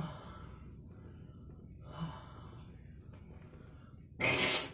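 A person undergoing gurah herbal nasal therapy, forcing breath through the nose and throat to clear mucus. There are short breathy bursts at the start and about two seconds in, then a loud rushing blast of breath for about half a second near the end.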